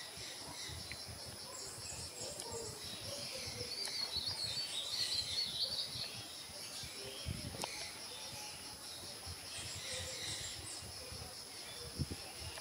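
Faint outdoor background of small birds chirping, busiest a few seconds in, over a steady high pulsing drone of insects.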